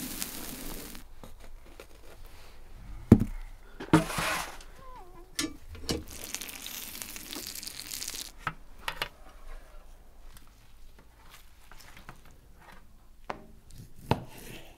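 Cooking and food-handling sounds: scattered sharp clicks and knocks, the loudest about three seconds in, with several stretches of hiss. Near the end a knife cuts through crisp-crusted grilled mutton fat.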